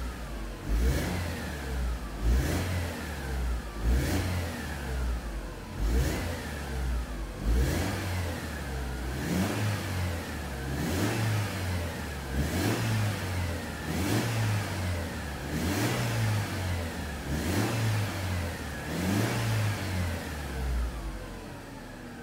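2004 Mercedes-Benz C-Class (W203) engine revved again and again from idle, about a dozen quick blips to around 3000 rpm, one every second and a half or so. Each blip falls straight back, and the engine drops back toward idle near the end.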